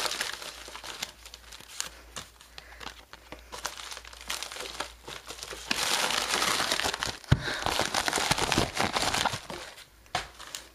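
White packing paper crinkling and crumpling as it is pulled away from a cardboard box, louder in the second half, with a single dull knock partway through that louder stretch.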